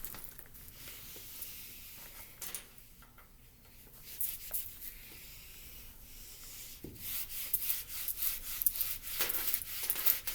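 Rubbing and scratching strokes on a whiteboard, as when writing or erasing on it, faint at first and becoming a quicker, louder run of strokes in the last few seconds.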